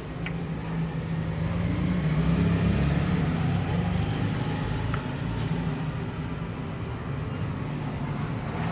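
Low motor rumble with a hum, swelling over the first few seconds and then slowly fading.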